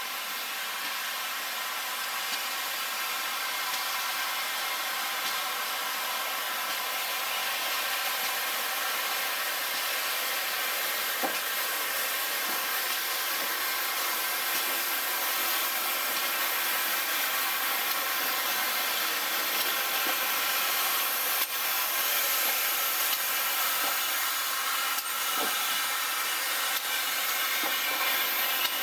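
GWR Hall class steam locomotive 4953 Pitchford Hall moving slowly with its cylinder drain cocks open, giving a steady hiss of steam that grows louder as it draws close.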